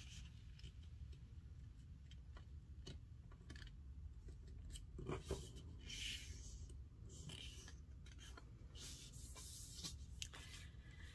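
Faint handling of paper strips: soft rubbing with scattered light taps and clicks, a little louder around the middle.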